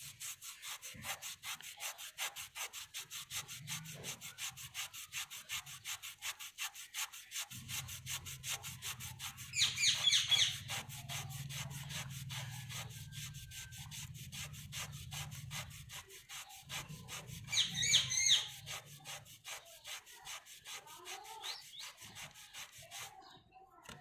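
Cloth scrubbed rapidly back and forth over a rusty chrome motorbike wheel rim, scouring the rust off in fast, even strokes that stop about a second before the end. Two short high chirps stand out, about ten and eighteen seconds in.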